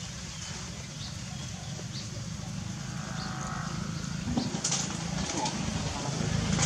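Outdoor background noise: a low steady hum under scattered small clicks and a few faint, short high chirps, growing louder near the end.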